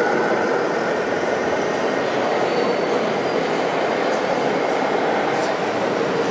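Radio-controlled model tractors running steadily as they pull tillage implements through soil, their electric drives and gearboxes heard over the constant background din of a busy exhibition hall.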